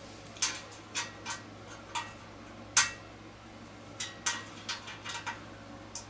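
Irregular metallic clicks and taps from a screwdriver bit driven with a quarter-inch wrench, working the hidden screws on a ceiling fan's metal canopy.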